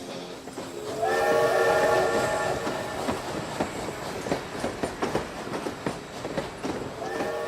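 Train horn sounding one long multi-note blast, with train wheels clattering and clicking over the rails; a second horn blast begins near the end.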